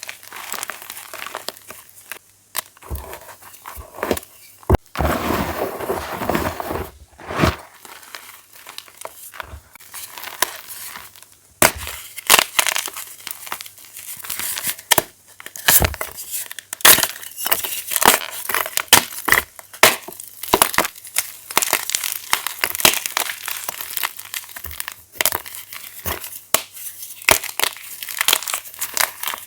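Fresh blocks of reformed plain chalk being crushed: a run of crisp crunches and cracks as the blocks crumble, with a softer, denser crumbling stretch about five to seven seconds in. From about twelve seconds the crunches come thick and fast.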